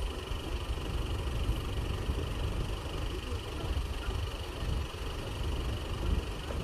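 Vehicle engine running steadily with a low rumble, during a recovery of a truck stuck in sand.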